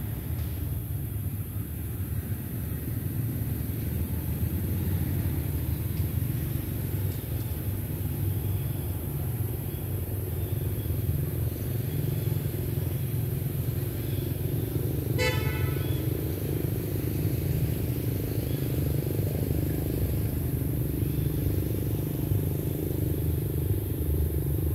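Steady low rumble of vehicle engines and traffic, with one short vehicle horn toot about fifteen seconds in.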